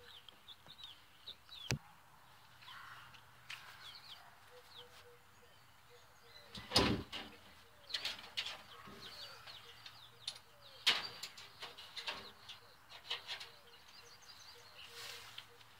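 Scattered clicks and knocks from the metal nesting-box door and its latch on a chicken house being worked and opened, with straw rustling as it is pulled out by hand; the loudest is a dull knock about seven seconds in. Small birds chirp faintly in the background.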